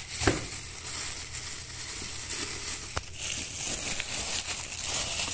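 Thin plastic grocery bag crinkling and rustling as fruit inside it is handled, with a few sharp clicks, over a steady hiss.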